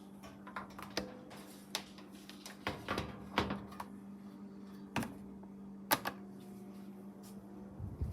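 Scattered, irregular clicks and knocks, about six in all, over a steady low hum, as from a plastic table fan being handled and its controls touched.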